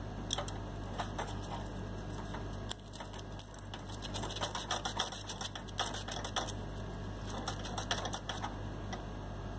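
Quick, irregular small scratching and clicking as the contact points of a stabilizer relay are scraped clean, busiest in the second half, over a faint steady low hum.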